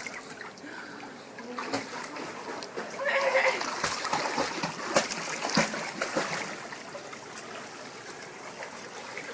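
Water splashing as a dog swims, with several sharp splashes in the middle, then settling to quieter lapping water.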